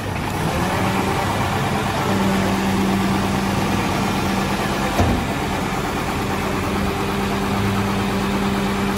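Garbage packer truck's engine idling with a steady hum. A single short knock about five seconds in.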